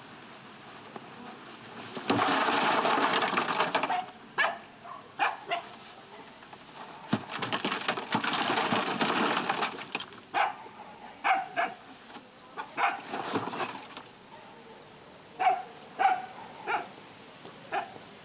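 A dog barking in short barks, in small groups of two or three. Two loud stretches of rushing noise, about two seconds long each, come before and between the barks.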